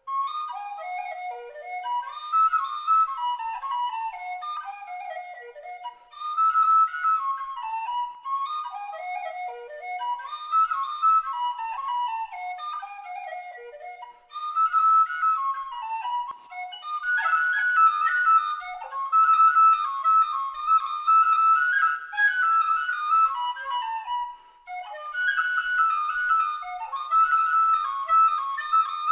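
Miller Wicks B-flat marching-band flute fitted with a Roy McManus fipple, playing a traditional Irish jig solo as a single quick melody line. There are short pauses between phrases, and from about two-thirds of the way in the tune sits mostly in a higher register.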